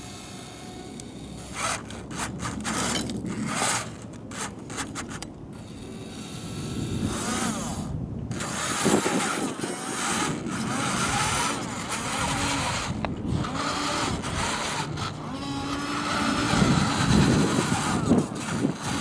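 Small electric motors of a radio-controlled model wheel loader whining, rising and falling in pitch as it reverses and drives, with gravel and dirt scraping and crunching.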